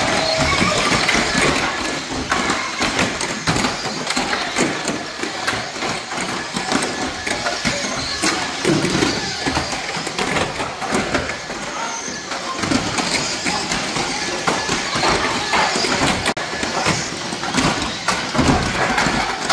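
Small electric RC banger cars with ABS plastic bodies racing on a carpet track: a constant busy clatter with many sharp knocks as the cars bump each other and the track barriers.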